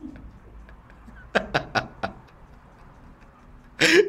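A man laughing: three short breathy chuckles about a third of the way in, then a louder burst of laughter near the end.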